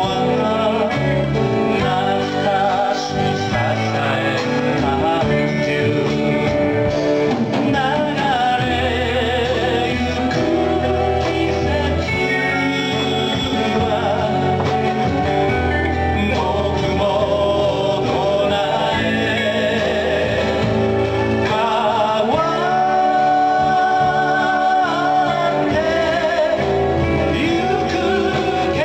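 Live acoustic band music: male voices singing over acoustic guitars, continuing without a break.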